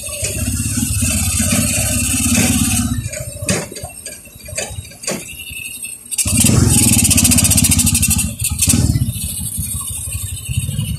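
Kawasaki motorcycle engine of a sidecar tricycle running under way, heard from the sidecar. It is louder for the first few seconds and again from about six seconds in as the throttle opens. In the quieter stretch between come a few short knocks.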